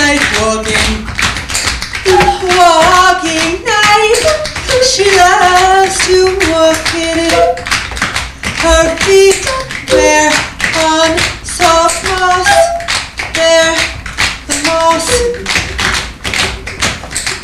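Tap shoes striking a stage floor in a fast, continuous pattern of taps from a group of tap dancers, with a wordless sung melody carried over the tapping.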